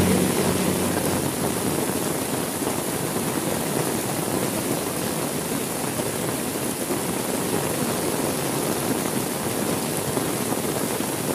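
Steady heavy rain. A low rumble dies away in the first second.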